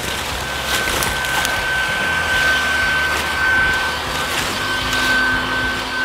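Bee vacuum's motor running steadily with a high whine, drawing honey bees off the hive in the tree through its hose; a few light ticks come through over the motor.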